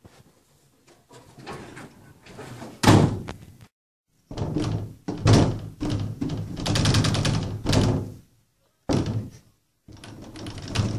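Heavy thuds and banging against a closed wooden door, in a string of loud bursts. The hardest single thud comes about three seconds in, followed by longer spells of banging and rattling.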